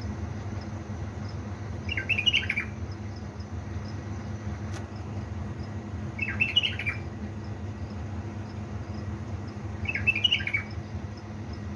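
A caged bulbul giving three short, bright chirping phrases, one about every four seconds, over a steady low hum.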